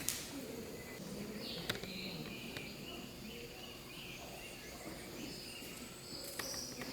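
Faint short bird-like chirps and insect sounds over a steady background hiss, with a few sharp clicks.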